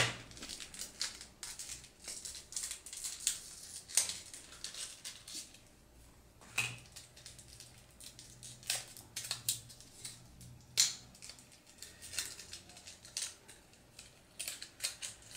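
The plastic retail packaging of a microSD memory card being pried and torn open by hand. It gives irregular small clicks and crackles, with a few louder snaps.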